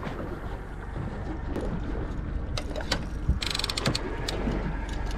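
Overhead fishing reel ratcheting, with a dense run of quick clicks a little over three seconds in and scattered handling clicks. A low steady boat rumble runs underneath.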